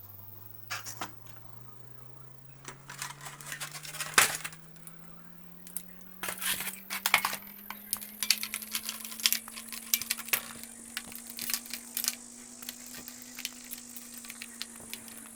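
Dry mud clay being crumbled: irregular crisp crunches and crackles, coming more often from about six seconds in.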